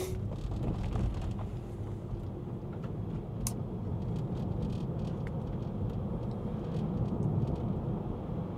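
Tyre and road noise inside a moving Tesla Model 3's cabin: a steady low rumble, with a few faint ticks.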